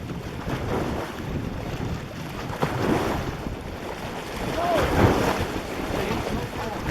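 Wind buffeting the microphone in gusts, a low rumbling that swells about three seconds in and again near five seconds.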